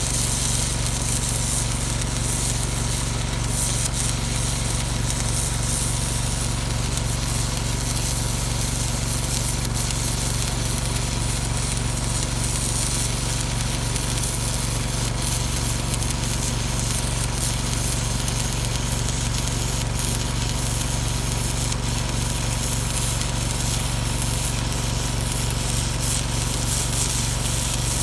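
Arc welding a hard-facing bead onto a skid steer bucket: a steady crackling hiss from the arc, with a constant low machine hum underneath.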